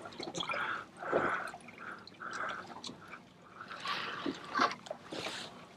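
Water lapping and gurgling against the hull of a small boat, in irregular splashes.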